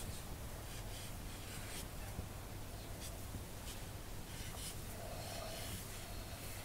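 Dry-erase marker writing on a whiteboard: faint scratchy strokes over a low steady room hum.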